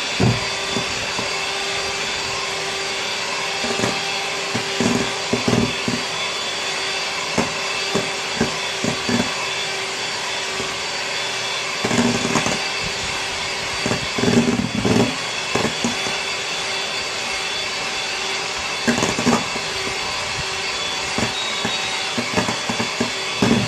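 Electric hand mixer running steadily on low speed in a stainless steel bowl, with irregular short clattering as the beaters knock against the bowl. Beating the ribbon-stage egg and sugar on low speed knocks out the air bubbles.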